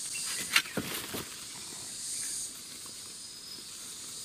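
A steady high-pitched chorus of insects buzzing, swelling about two seconds in. Over it, in the first second and a half, a few short rustles and crackles of hands scraping through soil and dry leaf litter, the loudest about half a second in.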